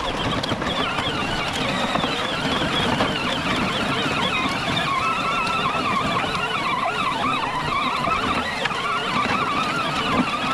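Power Wheels John Deere Gator ride-on toy's electric drive motors and gearboxes whining steadily. Several pitches waver up and down together.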